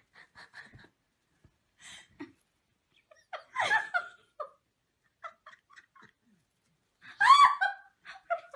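A person laughing in short bursts, with the loudest laughter about seven seconds in.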